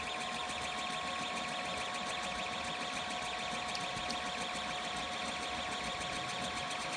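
3D printer at work printing, its motors giving a steady two-note whine with a fast, even flutter above it.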